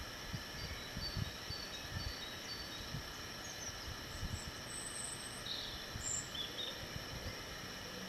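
Outdoor ambience with faint small-bird chirps: a quick run of short high notes early on and a few higher calls around the middle, over irregular low thuds.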